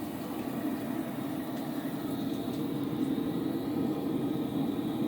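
Propane tankless water heater's gas burner running at full flame: a steady, even rushing noise, with the hot shower water running alongside.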